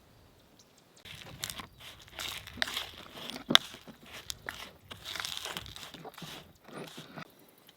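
Crinkly rustling and crunching of handled material, irregular and close, with one sharp click about three and a half seconds in.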